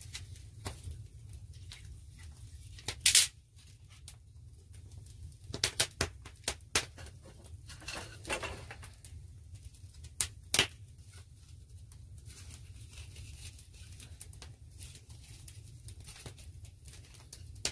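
Wood campfire crackling, with scattered sharp pops from sappy wood: a loud one about three seconds in, a cluster around six seconds and two more near ten seconds.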